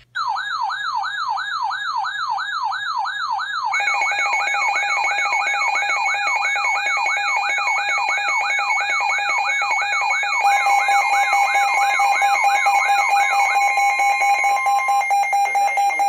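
Several weather alert radios sounding their alarms together for a severe thunderstorm warning. One gives a falling siren-like sweep that repeats about twice a second and stops near the end. About four seconds in, a steady pulsing tone joins it, and about ten seconds in, a second, higher steady tone.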